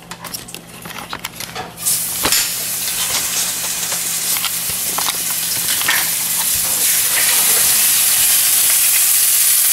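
Pepper-crusted Angus strip steaks going into a hot pan of light olive oil. A few sharp clicks, then about two seconds in a sudden sizzle that builds over the next few seconds to a steady frying hiss.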